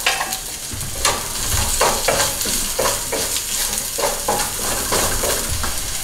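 Garlic, ginger and green onions sizzling in hot oil in a nonstick wok, with a wooden spatula scraping and tapping the pan in repeated strokes, about two a second, as they are stirred.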